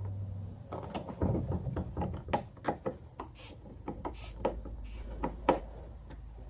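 Phillips screwdriver turning screws into a kayak's plastic rudder control knob mount: irregular clicking and ticking, with a denser run of clicks about a second in and a couple of brief scrapes around the middle.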